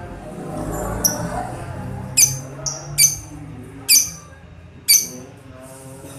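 Four sharp, loud bird chirps about a second apart, over background music.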